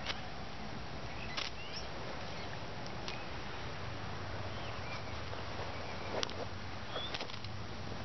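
Small pine-gum and cotton-thread fire starter burning: a few scattered faint crackles and pops, about five in all, over a steady background hiss.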